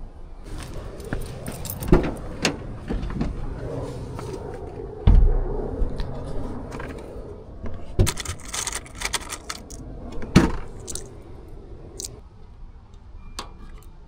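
Metal clinking and rattling with scattered sharp knocks and a heavy thump about five seconds in: tools and metal parts being handled during hands-on work.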